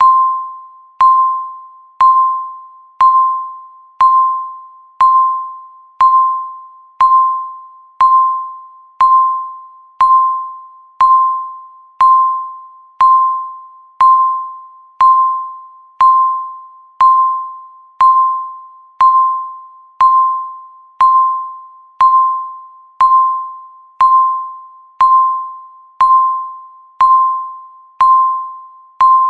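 Countdown timer beep sound effect: one electronic beep every second, each a single mid-pitched tone that starts sharply and fades away before the next, ticking off the seconds left.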